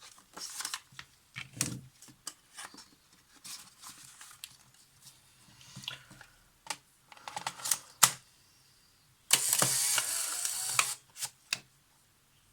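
Polaroid SX-70 instant camera being test-fired. There are small handling clicks, then a sharp shutter click about eight seconds in. Near the end the camera's motor and gear train run for about a second and a half, with a couple of clicks after.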